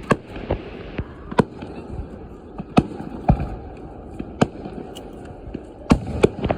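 Fireworks display: sharp bangs at irregular intervals, about eight in all, some close together in pairs, over a steady background hiss.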